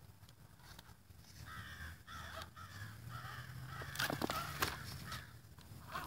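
Crows cawing repeatedly in short harsh calls, with a few sharp knocks and clicks about four seconds in.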